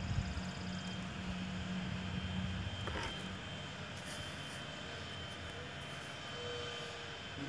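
A steady low engine drone with a faint, even high tone above it, and a brief click about three seconds in.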